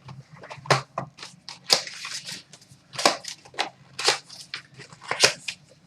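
Crackling, crinkling and rustling of trading-card packaging being torn open and cards being handled, as a series of short, sharp crackles.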